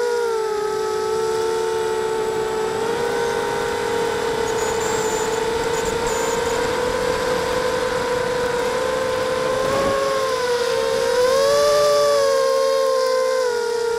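A 260-size FPV quadcopter's electric motors and propellers whine in flight, heard through its onboard camera. The whine is steady and made of two close tones that drift apart and back together. About eleven seconds in it rises in pitch and grows louder for a moment as the throttle changes, then settles back.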